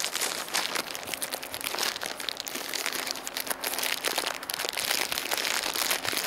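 Plastic packaging of a ready-made burger crinkling and rustling irregularly as it is handled and opened.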